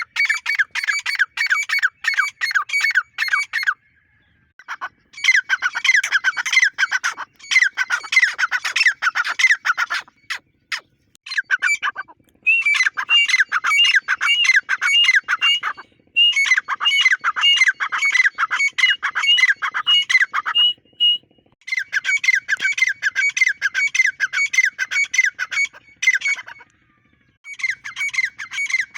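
Grey francolin calling: rapid runs of harsh, repeated notes, several a second, in bouts of a few seconds broken by short pauses.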